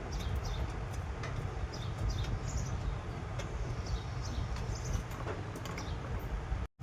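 Steady low background rumble with many short, high, downward-sliding chirps and a few clicks. The sound drops out briefly near the end.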